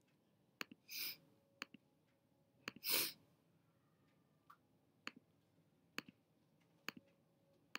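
Computer mouse clicking about once a second, many of the clicks doubled, as x buttons are clicked one after another. Two short breaths come about one and three seconds in; the second is the loudest sound.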